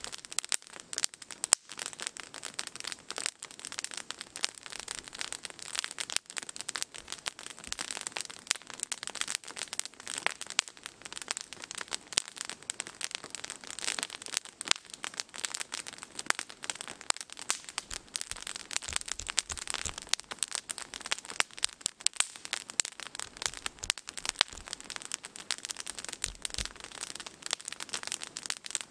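Wood campfire crackling and popping continuously, with many sharp pops a second and one louder pop about a second and a half in.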